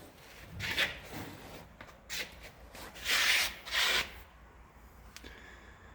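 A few brief rubbing, scraping sounds, the loudest pair between three and four seconds in, like things being handled or shifted.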